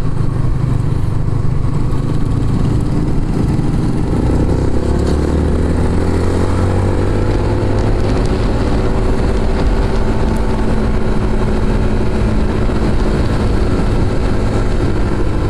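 Motorcycle engine running under way, its pitch climbing as it picks up speed about four seconds in and then holding steady, over a steady rushing noise.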